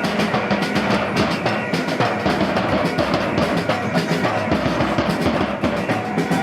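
Drums and other percussion playing a busy, continuous rhythm.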